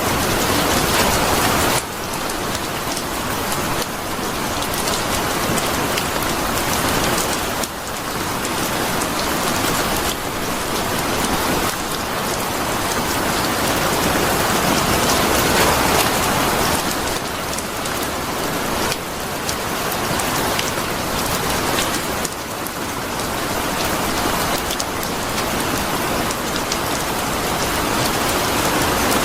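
Steady rain falling, a dense patter of drops on a surface, swelling and easing slightly.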